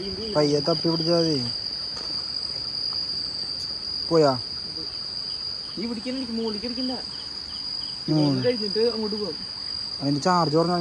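Night insects chirring in one steady high-pitched drone, with low voices speaking a few short words several times over it.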